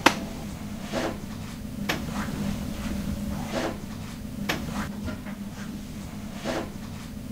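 A sharp knock, then light knocks and thumps about a second apart over a steady low hum: packets and boxes dropping onto a tiled shop floor.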